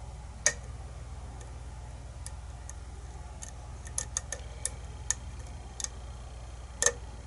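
Lock pick working the pin stacks of a kick-cylinder challenge lock under tension: scattered sharp metallic clicks, several in quick succession about four seconds in and a louder one near the end, as the lock goes into a false set. A steady low hum runs underneath.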